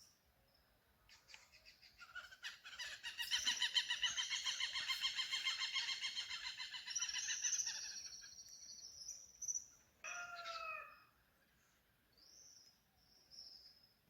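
Birds calling: a long run of fast repeated notes lasting about six seconds, then a shorter call with a falling pitch around ten seconds in.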